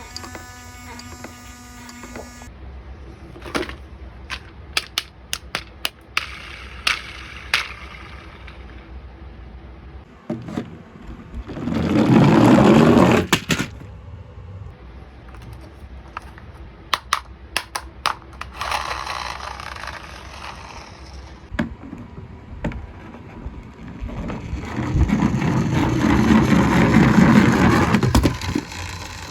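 Plastic toys and packaging being handled: scattered sharp clicks and taps, with two longer noisy stretches, a short one about twelve seconds in and a longer one near the end.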